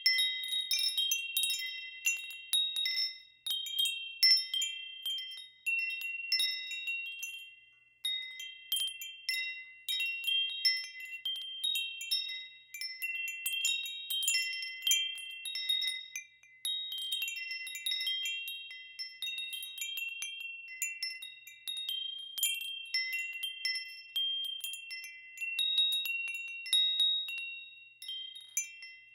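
Wind chimes ringing in the wind: a handful of high metal tones struck at random, often overlapping, each ringing on and dying away.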